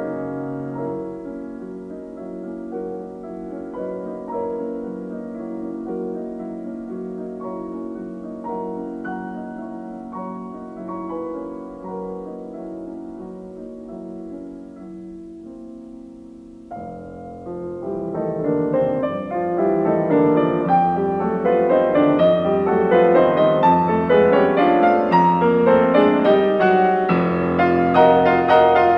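Background piano music: soft and sparse at first, then a little over halfway through it turns suddenly louder and fuller.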